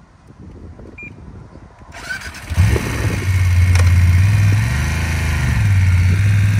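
A motorcycle engine starts about two and a half seconds in and runs loudly and steadily.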